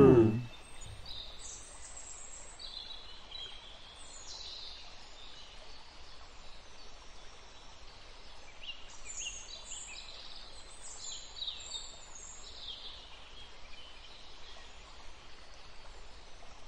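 Faint nature ambience of birds chirping in short high calls, scattered over most of the stretch, under a steady hiss. A wobbling cartoon boing effect dies away right at the start.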